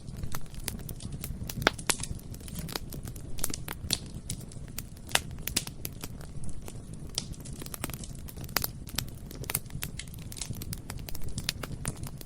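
Bonfire burning: a steady low rumble of flames with frequent irregular crackles and sharp pops from the burning wood.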